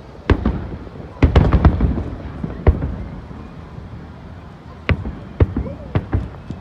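Aerial fireworks exploding in a series of sharp bangs: a single bang at the start, a rapid flurry of bangs about a second in, and more scattered bangs near the end.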